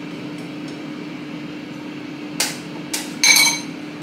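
Kitchenware knocking: two sharp knocks, then a louder clink that rings briefly near the end, over a steady low hum.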